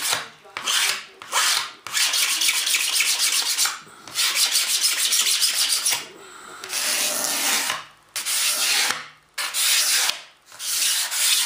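Single-edge razor blade scraping the cured resin-and-fiberglass skin of a model airplane wing panel: a rasping scrape in a series of strokes with brief pauses between them, taking off excess resin to leave the surface smooth without cutting the glass fibers.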